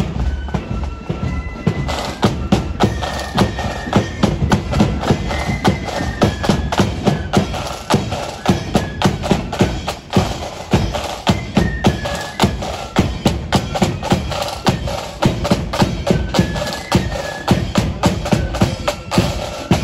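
Marching accordion band playing a tune: accordions hold a stepping melody over a steady beat of marching drums. The drumming fills in about two seconds in, and the music breaks off suddenly at the end.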